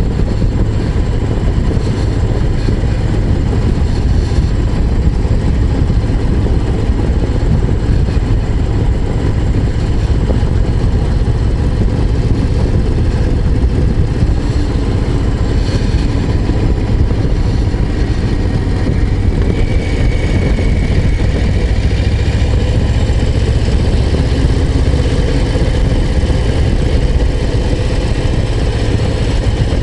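Harley-Davidson Low Rider ST's Milwaukee-Eight 117 V-twin engine and exhaust running steadily as the motorcycle rides along.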